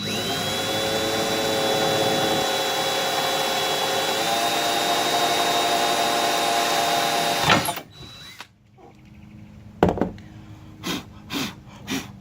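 Power drill boring a pilot hole for a lag screw in a boat's gunnel. It runs as a steady whine for about seven and a half seconds, stepping up a little in pitch about halfway, then stops suddenly. Several sharp knocks follow near the end.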